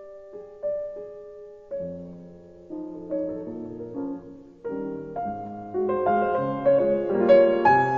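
Background piano music: a few sparse single notes that build into fuller, louder chords from about halfway through.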